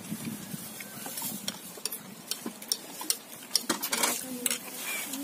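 Plates and cutlery clinking and tapping on a table during a meal, in scattered light clicks.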